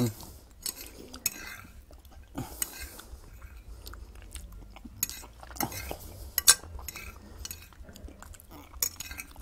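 Metal fork clinking and scraping against a plate as food is scooped up, a run of scattered sharp clicks, the loudest about six and a half seconds in.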